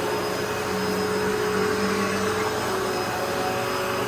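Hoover Elite Rewind upright vacuum cleaner running steadily while vacuuming the floor, its motor making a steady whine over the rush of air.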